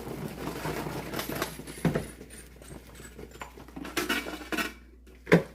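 Small plastic LEGO pieces rattling and clattering as they are handled, with scattered sharper knocks and one loudest knock near the end.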